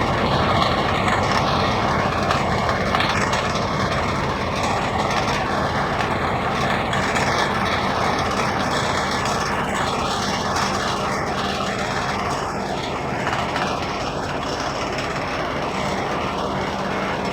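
Pellet-making machinery running steadily: a dense, even mechanical noise with a constant hum underneath.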